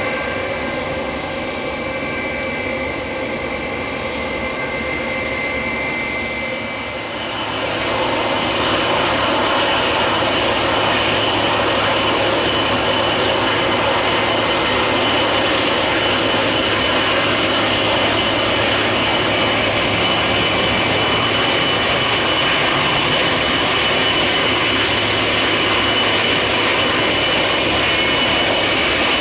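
Turbofan engines of an Airbus A321 running at taxi power: a steady jet hiss with a high whine. About seven seconds in the sound grows louder and a higher whine comes in, then holds steady.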